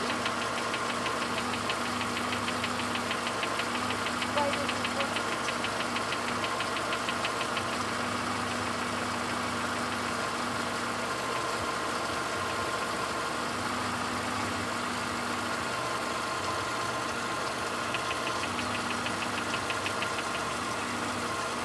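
VW Golf 5 Plus BSE 1.6-litre eight-valve petrol engine idling steadily with a rapid, regular light knock, clearer early on and again near the end; this knock is the engine fault in question.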